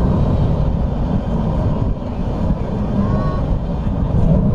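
Jet noise from an F-22 Raptor's twin turbofan engines: a loud, steady low rumble that dips slightly about two seconds in.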